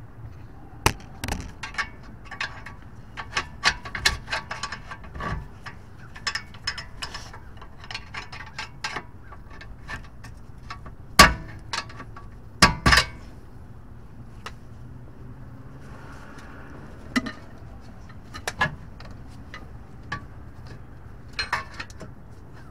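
Hand tools clinking and tapping against the steel of a car's front steering knuckle and suspension parts: irregular light metallic clicks, with two louder sharp knocks a little past the middle.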